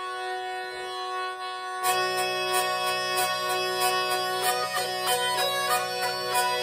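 Antique ivory-and-silver musette, a bellows-blown French baroque bagpipe, playing with other players. A steady drone sounds alone at first. About two seconds in the music comes in louder, with a lower drone underneath, a quick-moving tune on top and a light, regular beat.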